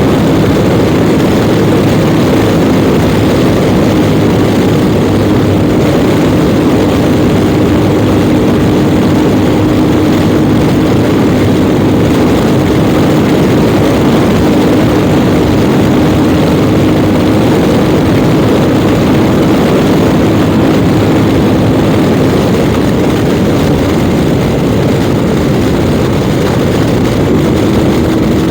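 Yamaha Ténéré 700 World Raid's parallel-twin engine running at a steady note while riding, under a heavy rush of wind on the microphone. The engine note fades for a few seconds near the end, then returns.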